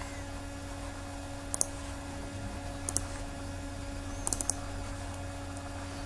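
Short sharp computer clicks: a quick pair about one and a half seconds in, another about three seconds in, and a fast run of four a little after four seconds, over a steady low electrical hum.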